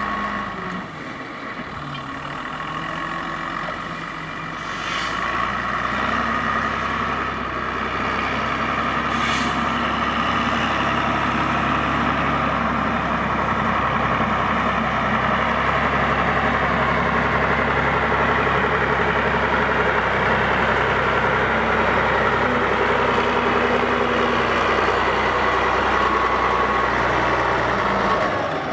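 Stalowa Wola Ł-34 wheel loader's diesel engine running under load as it stacks straw, getting louder about five seconds in, with a steady whine over it. Two short hisses come about five and nine seconds in.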